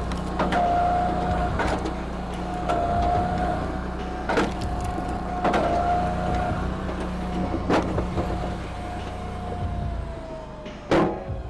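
Engine-driven hydraulic log splitter running: a steady engine hum under a whine that slides lower near the end, with sharp cracks every second or two.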